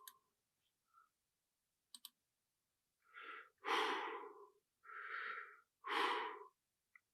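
A man's recorded breathing played back after denoising at full strength: four breaths in about three seconds, with silence between them where the background hiss has been removed. A faint click comes about two seconds in.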